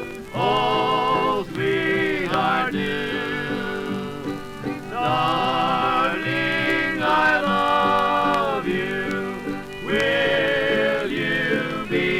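Old-time string band music from a 1927 78 rpm record: a fiddle carries a sliding, wavering melody over plucked guitar and banjo accompaniment, with no singing.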